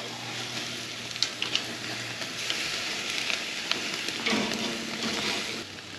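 Chicken sizzling over a very hot charcoal fire on a grill grate, the fat burning, with a few light clicks of metal tongs in the first few seconds.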